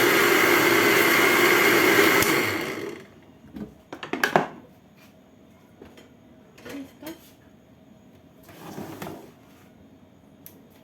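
Kitchen blender running steadily while it blends a liquid batter of orange juice, sugar, oil and eggs, then winding down and stopping about three seconds in. Afterwards come a few clinks and knocks of dishes being handled, the loudest just after four seconds.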